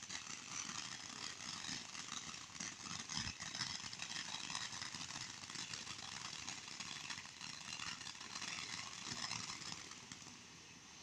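A firework burning and spraying sparks: a steady hiss with fine crackle, dying down near the end.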